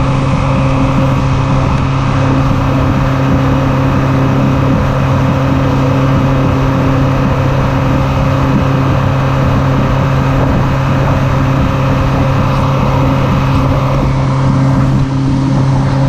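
Honda 135 four-stroke outboard motor running at speed with a steady, unchanging drone, over the rush of the boat's wake.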